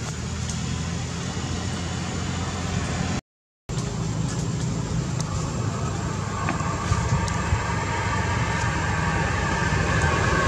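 Steady low hum of a running motor vehicle engine, broken by a short dropout about three seconds in and growing louder toward the end.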